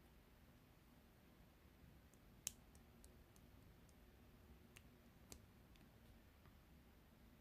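Faint, scattered clicks and small pops from marbled slime being handled, the loudest about two and a half seconds in and another about five seconds in, over near silence.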